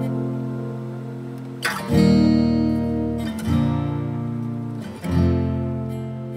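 Background music: an acoustic guitar strumming slow chords, three strums each left to ring and fade before the next.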